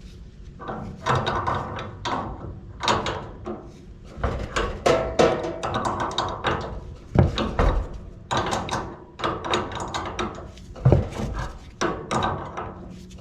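Irregular knocking and clattering of metal tools and gas fittings being handled during work on a heater's gas connection, with some brief metallic ringing.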